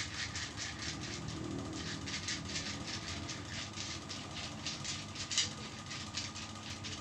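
Hands rubbing briskly up and down bare skin in a traditional Javanese massage of the forearm, a quick run of soft hissing friction strokes, several a second.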